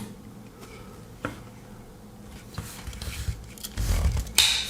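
Handling noise from a Swiss Army knife with its wood saw blade out: a single click about a second in, then soft knocks and rumbling in the last two seconds, ending with a sharper click.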